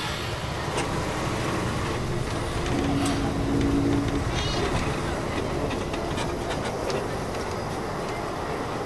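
Railway train running along the track: a steady rumble of wheels on rails with faint clicks. A short steady tone sounds for about a second and a half, about three seconds in.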